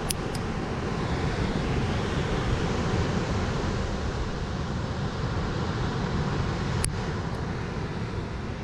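Wind rushing over the microphone with surf breaking below, and sharp clicks of steel nail clippers cutting a toenail: two just after the start and one about seven seconds in.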